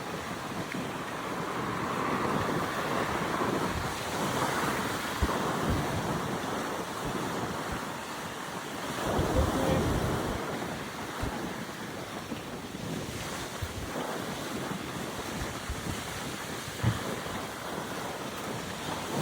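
Surf washing onto a beach under strong wind, with gusts buffeting the microphone in low thumps. The wave noise swells and falls, loudest about nine to ten seconds in.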